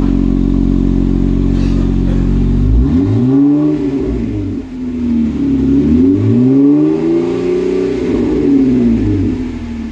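Jeep Wrangler JK's V6 engine heard at the tailpipe through an aftermarket Gibson muffler. It idles steadily, then is revved twice, the pitch rising and falling each time.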